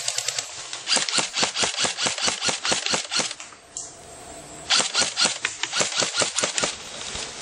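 Airsoft gun firing rapid strings of shots, about ten a second, with a break of about a second midway.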